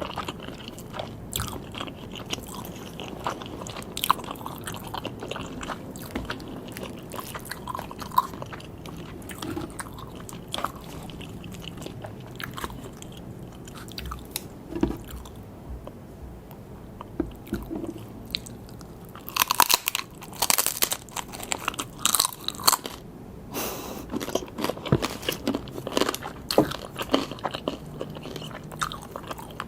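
Sushi being chewed and bitten: steady chewing with many small clicks, and two louder stretches of crunching about two-thirds of the way through.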